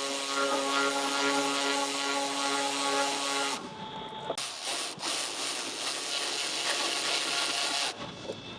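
Electric ratchet running in long steady spells, spinning out intercooler boot hose clamps. Its whine changes about three and a half seconds in, and it stops shortly before the end.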